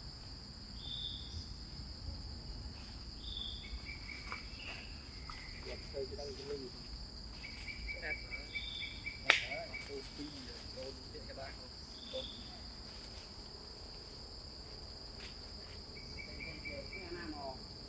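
Steady high-pitched drone of forest insects, with scattered short chirps and one sharp click about nine seconds in.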